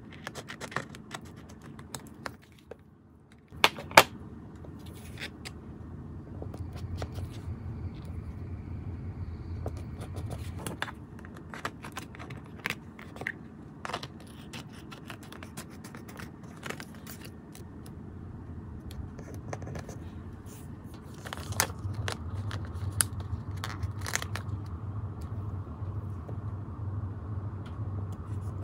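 Small scissors snipping through a clear plastic sticker sheet, a run of sharp irregular snips with the sharpest about four seconds in, and the film crackling as it is handled. A low steady hum runs underneath, stronger in the middle and near the end.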